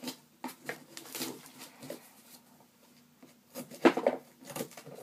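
Cardboard box being handled and opened: scattered scrapes and knocks, then scissors cutting into the cardboard, with a loud cluster of snips and scrapes about four seconds in.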